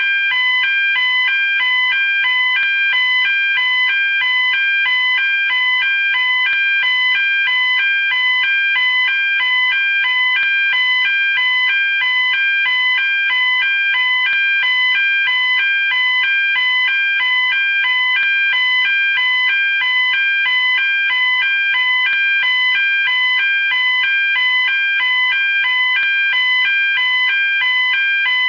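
Simulated Spanish fire alarm sounder: a loud electronic tone that alternates rapidly and steadily between a lower and a higher pitch.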